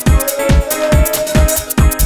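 Electronic dance music with a fast, steady kick-drum beat, about four beats a second, under a held synth note.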